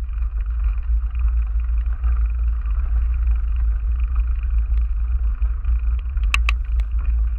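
Steady low rumble of wind and riding noise on a cycling camera's microphone as the bike rolls over rough tarmac, with two or three sharp clicks about six seconds in.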